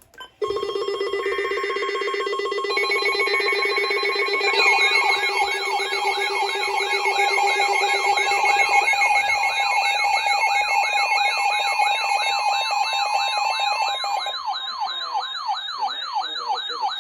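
Several weather alert radios going off at once. Steady alert tones come first, broken by short chirps of digital header data. About four and a half seconds in, warbling siren-like alarms join, repeating about three times a second. The tones announce an incoming special marine warning.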